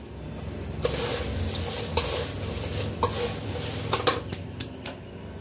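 Crisp fried poha chevda being tossed by hand on a steel plate: the dry flakes rustle and crunch, with a few sharp clicks against the metal plate.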